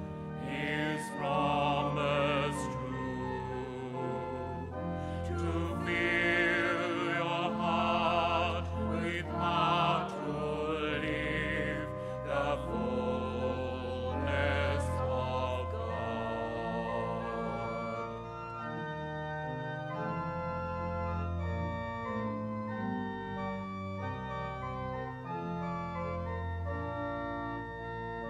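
Hymn sung by a singer with strong vibrato over organ accompaniment. The voice stops about eighteen seconds in, and the organ plays on alone between verses.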